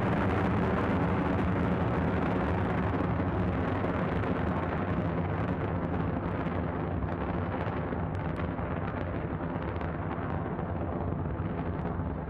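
Falcon 9 rocket's first-stage engines heard during ascent: a continuous deep rumble with crackling, growing gradually fainter and duller as the rocket climbs away.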